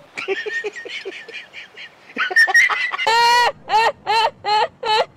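Laughter: quieter quick laughing at first, then from about three seconds in a loud, high-pitched laugh, one long note followed by even 'ha' bursts about three a second.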